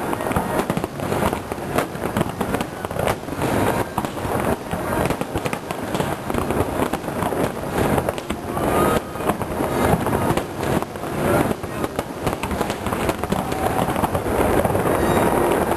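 Aerial firework shells bursting in a rapid, near-continuous barrage of overlapping booms and crackles, with no pause between them.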